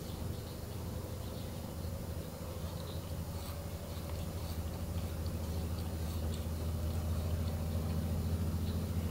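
Cat purring: a low, rapidly pulsing rumble that grows louder over the last few seconds, while a black cat licks a Siamese cat's head with faint small clicks of its tongue.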